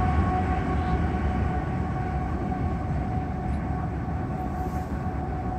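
CSX mixed manifest freight train rumbling, slowly fading, with a steady ringing tone from the grade-crossing warning signals over it.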